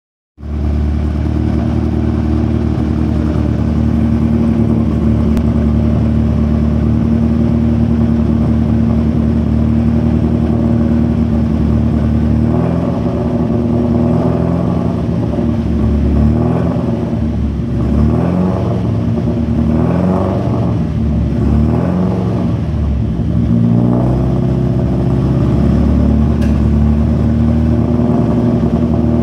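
Tuned Alfa Romeo 33 1600 flat-four engine idling steadily. From about twelve seconds in, the throttle is blipped several times, the revs rising and falling, before it settles back to a steady idle.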